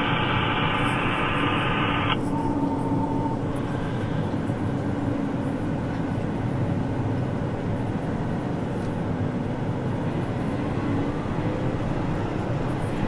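Engine of a farm vehicle running steadily, a constant drone with a low hum. About two seconds in, a hissing, radio-like sound stops abruptly.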